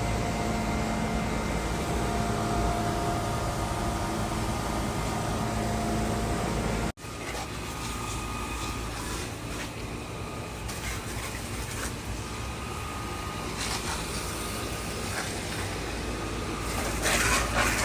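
Air-conditioning units running: a steady mechanical hum with several steady tones. The sound drops out for an instant about seven seconds in, and a louder noisy burst comes near the end.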